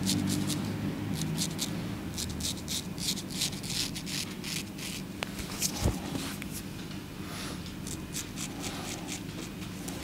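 Cut-throat razor scraping through lathered beard stubble in many short, crisp strokes, in two runs with a pause between them. One dull thump about six seconds in.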